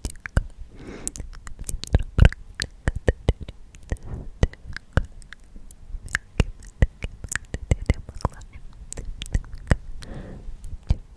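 Close-up ASMR mouth sounds: many irregular wet clicks and pops right at the microphone, with a few soft breathy whispers.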